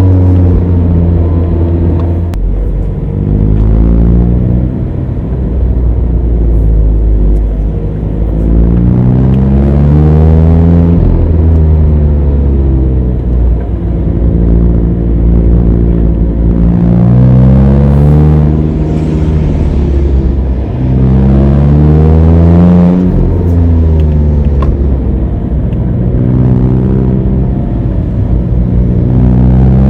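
Mazda ND Roadster (MX-5) four-cylinder engine under load, its revs climbing and dropping several times as the manual gearbox is worked through the gears and the throttle is lifted and reapplied.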